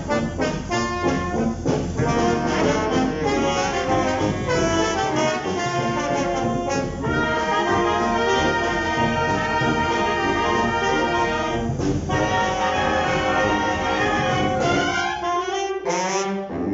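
Wind band of brass and woodwinds playing a film-score arrangement live in concert. It opens with short repeated chords, moves to long held chords, breaks off briefly about twelve seconds in, and ends on a lighter, higher passage without the low instruments.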